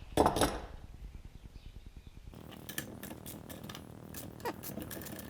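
Metal clanks and knocks from cast-iron stove parts and hand tools being handled during disassembly: two loud knocks near the start, then scattered light clicks, with a short falling squeak near the end.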